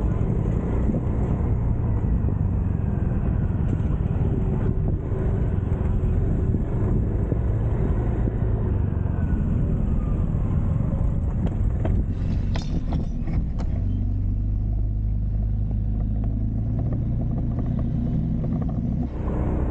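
Motor scooter running along a road, its engine rumbling under wind and road noise. A short run of sharp clicks or knocks comes about twelve seconds in, and the engine note then settles steadier.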